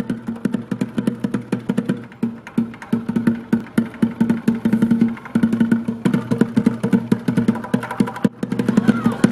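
Background music with a fast percussive beat over low sustained notes, with a brief break about eight seconds in.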